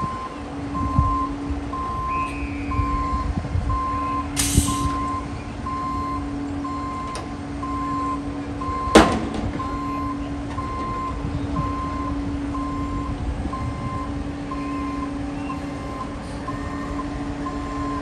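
Concrete mixer truck reversing up to a concrete pump, its backup alarm beeping about once a second over a steady engine hum. A short hiss of air comes about four seconds in, and a single sharp bang, the loudest sound, comes about halfway through.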